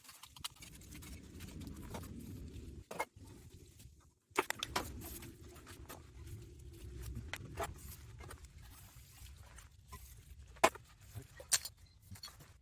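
Scattered clicks and knocks of collected litter being handled and sorted, over a low steady rushing noise. The sound drops out briefly about four seconds in.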